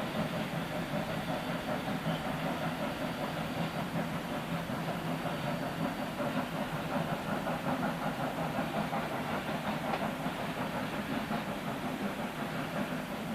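Steam-hauled freight train running steadily: a continuous rumble with rapid clattering of wheels on the track.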